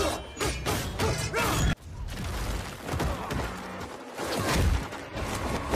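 Film fight-scene sound effects: a rapid run of swishes and hard hits from a spear fight, laid over score music. The sound drops out suddenly for an instant just before two seconds in, then the hits go on.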